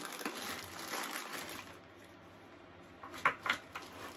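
Gaming chair parts being handled while the castor wheels are fitted: rustling and scraping that quietens after a couple of seconds, then two sharp knocks about three seconds in.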